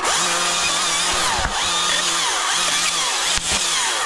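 Husqvarna 542i XP battery chainsaw running at full speed while limbing spruce branches, its motor tone dipping briefly a few times under load. It starts suddenly and cuts off just as suddenly.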